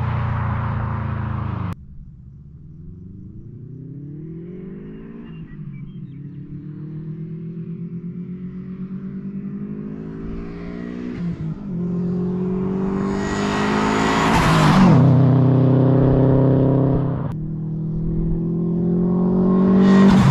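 Turbocharged Subaru WRX wagon flat-four engine accelerating hard through the gears. Its pitch climbs and drops back at each upshift as the car comes closer, and it is loudest as the car passes close by about 15 seconds in. The sound breaks off suddenly twice, as separate runs are spliced together.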